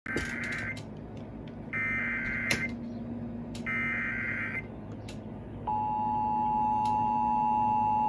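Emergency Alert System tones from an FM broadcast, heard through a Midland weather radio's speaker: three short, harsh bursts of the SAME digital header about a second apart. A short pause follows, then the steady two-tone EAS attention signal begins.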